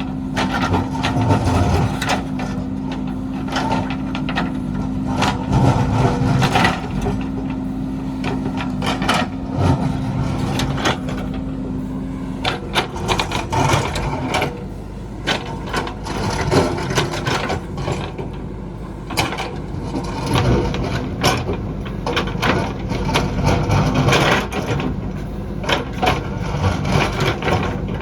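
JCB backhoe loader's diesel engine running while it digs, with repeated knocks and clatter of rock and stones against the bucket. A steady engine tone drops away about halfway through.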